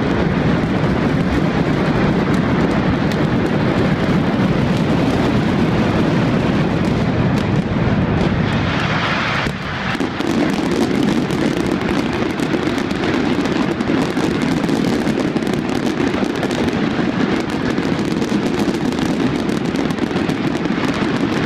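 Mascletà: a barrage of firecracker bangs so dense that they merge into one continuous, loud noise, easing briefly about nine and a half seconds in.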